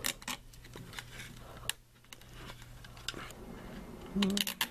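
Small clicks and taps of a Phillips head screw being fitted and turned by hand into a car alarm siren's mounting bracket, with a denser run of clicks about four seconds in.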